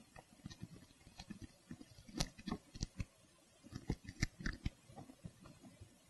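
Razor blade cutting a small slit in a leather seat cover, heard as a faint run of irregular ticks and crackles as the blade slices through.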